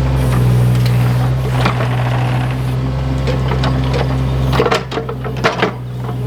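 Small diesel earth-moving machine's engine running steadily, with repeated metallic clanks and knocks from the working machine. The engine note dips briefly about five seconds in, among a cluster of sharper knocks.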